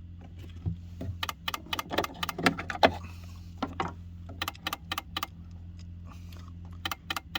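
ACL Lifestyle heating programmer/timer making an unwanted noise: a steady low electrical hum with irregular sharp crackling clicks over it.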